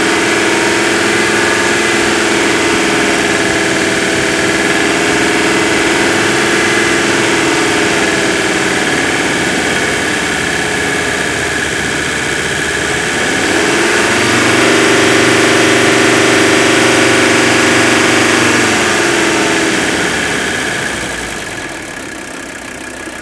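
Mercedes-Benz W123 300TD's five-cylinder turbo diesel engine running above idle on diesel purge cleaner, raced to put pressure on the injection pump as the purge works through it. The revs ease a little, climb again about halfway through and hold, then drop back to a quieter idle near the end.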